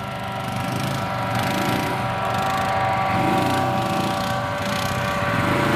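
Quad bike (ATV) engine running as it is ridden over a sandy track, its note rising and falling with the throttle, with a steady high whine over it.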